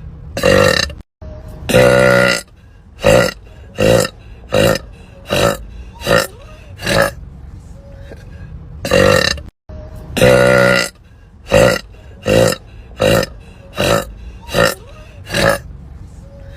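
A woman burping over and over. Each round is one or two long, drawn-out burps followed by a run of about six short burps less than a second apart, and the round comes twice.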